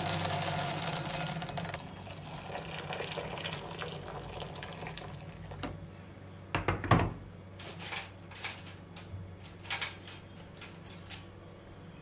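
Dried soya chunks rattling into a cut-glass bowl, then water over them, fizzing and crackling with many small ticks as the chunks soak. There is one louder knock about seven seconds in.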